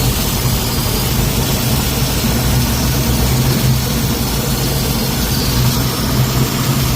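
Car engine idling steadily, a low hum under a steady hiss.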